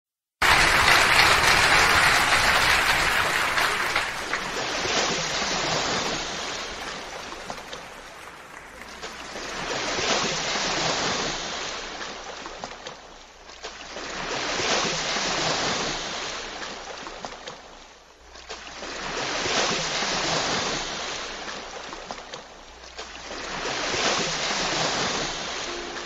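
Recorded sea-surf sound effect: waves rushing in and drawing back, swelling and fading about every four to five seconds, loudest at the very start.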